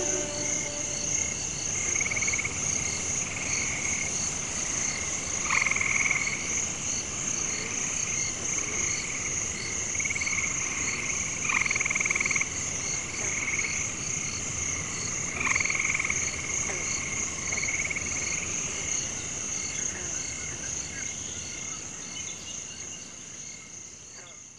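Night chorus of frogs croaking over a steady, high insect trill, with louder bouts of frog calls every few seconds. It fades out near the end.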